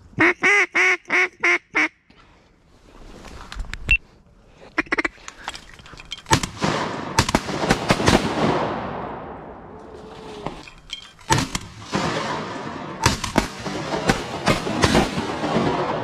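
A duck call blown in six quick, even quacks, followed from about four seconds in by a string of shotgun shots, each crack trailing off in echo, as the hunters fire at a passing duck.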